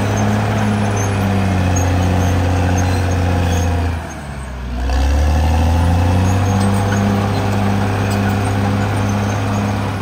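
Caterpillar D6R XL bulldozer's diesel engine running steadily under load. About four seconds in, the engine note sags and goes quieter for a moment, then rises again.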